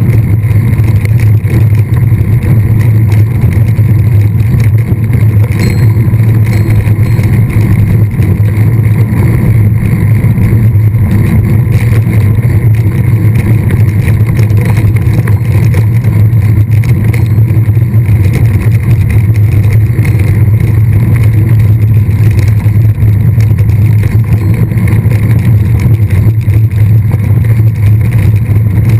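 Loud, steady rumble of wind buffeting the microphone of a camera riding on a mountain bike in motion.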